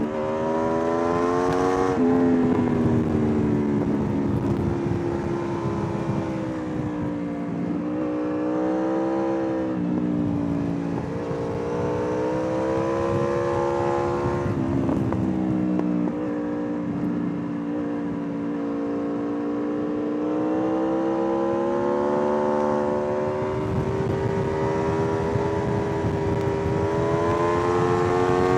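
Aprilia RSV4's V4 engine pulling through the gears on a ride. Its pitch climbs and then drops sharply about three times, with a steady rush of wind noise underneath.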